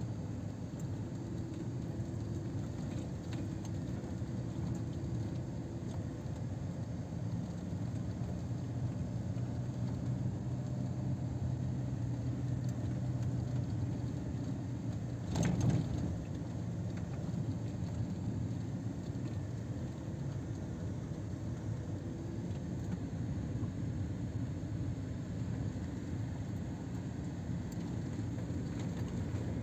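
Car driving on a sandy track, heard from inside the cabin: a steady low rumble of engine and tyres, with one brief knock about halfway through.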